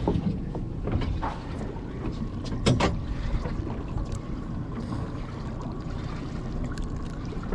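Steady wind and sea noise aboard a fishing boat, with a few sharp clicks and knocks from handling the rod, hook and fish; the loudest click comes nearly three seconds in.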